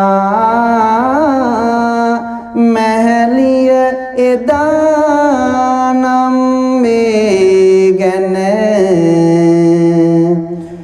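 A male Buddhist monk's voice chanting kavi bana verse in long, drawn-out notes that slide slowly from pitch to pitch, with short breaths between phrases.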